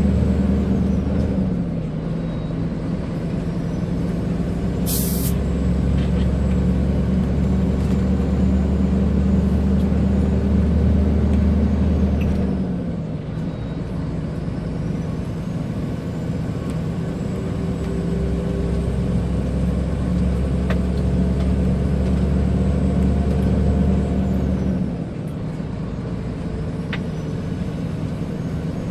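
Scania 124L 420's 12-litre inline-six diesel pulling the truck along, running up between gear changes; its pitch and the low rumble drop three times as gears change, about a second and a half in, about halfway and near the end. The turbo whistle falls away and climbs again at each shift, and a short burst of compressed-air hiss comes about five seconds in.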